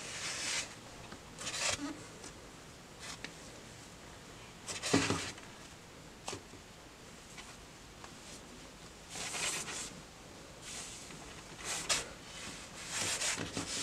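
Hands squishing and stretching slime: scattered short squelches and crackles, about ten in all, the loudest about five seconds in.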